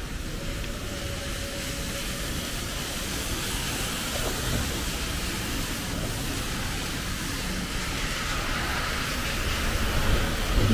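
Street traffic on wet asphalt: tyres hiss on the wet road, growing louder as a Hyundai Elec City electric bus passes close near the end.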